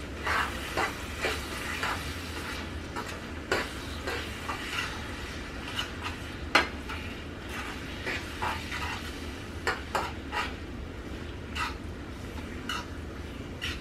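A utensil scraping and knocking irregularly against a pot, one or two strokes a second, as ground meat is stirred and broken up, over a faint sizzle of the meat browning.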